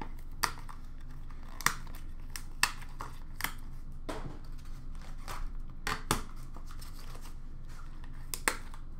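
A hockey-card box and its packaging being opened by hand: crinkling and tearing of wrapper and cardboard, broken by about a dozen irregular sharp clicks and snaps.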